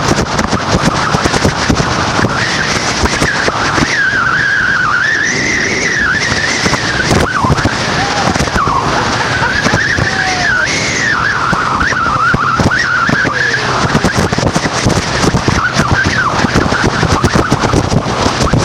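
Motorboat engine running under way, its whine wavering up and down in pitch, over rushing wind buffeting the microphone.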